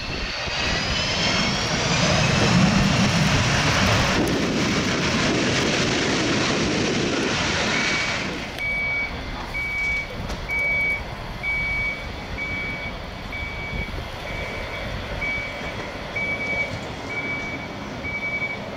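Boeing 727's three Pratt & Whitney JT8D turbofans spooling up into reverse thrust on the landing roll. A whine rises in pitch, then a loud rush of thrust dies away about eight seconds in. After that a vehicle's reversing beeper sounds, one high beep a little more than once a second.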